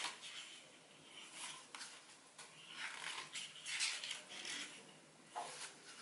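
Pages of a picture book being turned and handled: a string of soft paper rustles, busiest around the middle.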